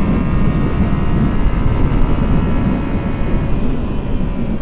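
Yamaha XSR700's parallel-twin engine running under way, its note easing slightly lower, with wind rush and buffeting on the microphone.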